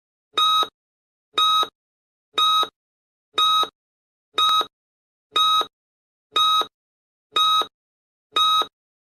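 Nine short electronic beeps, one a second, with silence between them; each is the same buzzy tone with several overtones.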